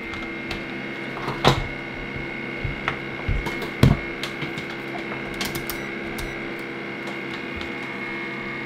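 Metabo battery charger humming steadily with a high electronic whine while it charges a lithium-ion drill battery pack. A multimeter and its test leads are set down and handled on a rubber work mat, giving a few knocks and clicks, the loudest about one and a half and four seconds in.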